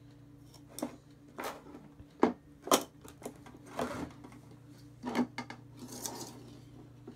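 A spoon clinking and scraping against a glass jar and a mixing bowl as salt is scooped out and tipped into beaten egg. About eight separate knocks and scrapes come a second or so apart.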